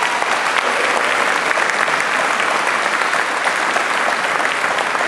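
Audience applauding: many hands clapping together in a steady, dense round of applause.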